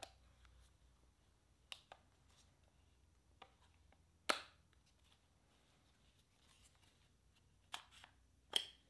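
Scattered sharp clicks and taps from a Canon EOS R6 mirrorless camera body being handled, some in quick pairs, with the loudest about halfway through.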